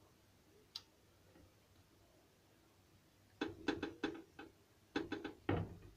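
A kitchen knife clicking and knocking against a granite countertop while raw chicken breast is sliced into thin cutlets. There is a single click about a second in, then two quick runs of sharp clicks in the second half.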